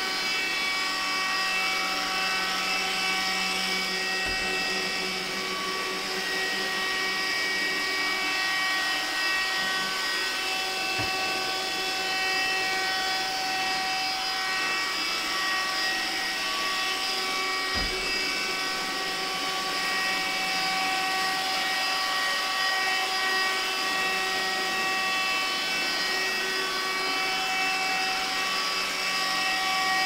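iRobot Roomba s9+ robot vacuum running as it cleans a wooden floor: a steady whine of its motors over a rushing hiss. Three brief low thumps come at intervals.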